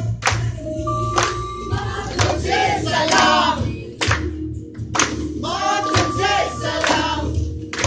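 Music: a group of voices singing over a regular beat that falls about once a second.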